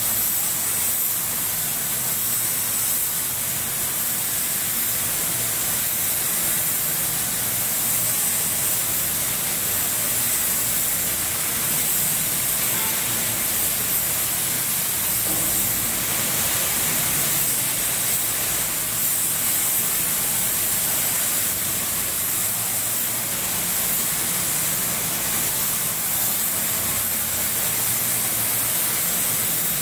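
Spray gun of a metal sealant cartridge spray system hissing steadily as it sprays coating onto steel, with a low hum underneath.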